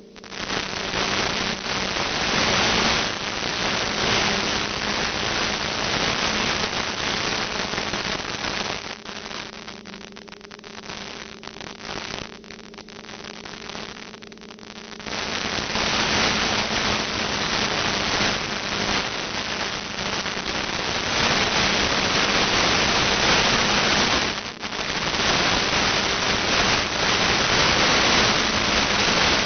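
Loud static hiss and crackle from an analog 2.4 GHz FPV video receiver's audio output. It starts suddenly, eases off for several seconds midway, and comes back loud. This is the noise of a weak, breaking-up video link at the edge of its range.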